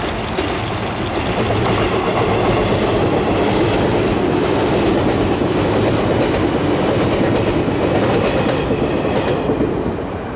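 JR 485 series electric multiple unit, six cars, passing straight through a station at speed: a loud, steady rumble of wheels on rail that builds over the first couple of seconds and falls away near the end as the last car goes by.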